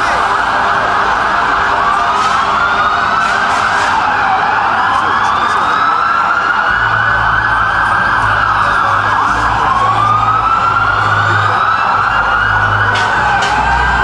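Several emergency vehicle sirens wail at once, in slow overlapping rises and falls of pitch, over a steady rushing noise. A low rumble joins about seven seconds in.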